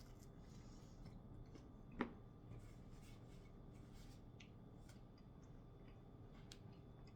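Near silence with faint small handling sounds and one sharp click about two seconds in.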